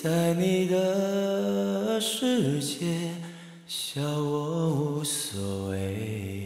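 A singer's voice in Mandarin holding long, steady notes with a few short slides, over a quiet accompaniment; a low bass note comes in about five seconds in.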